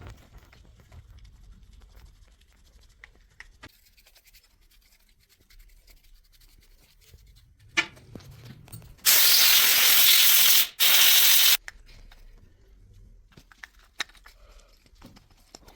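Aerosol cleaner sprayed onto starter motor parts in two hisses, about a second and a half and then under a second, with a short break between. A few light clicks of the parts being handled come before and after.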